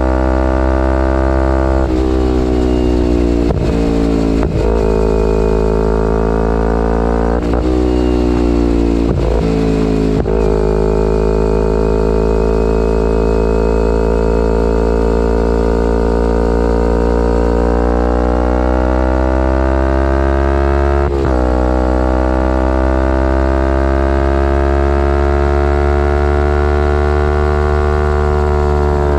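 2011 Kawasaki Ninja 250R's parallel-twin engine through a full Graves race exhaust, under way. The revs break off and drop several times in the first ten seconds, as at gear changes, hold steady for a long cruise, then climb to another break about 21 seconds in and rise again.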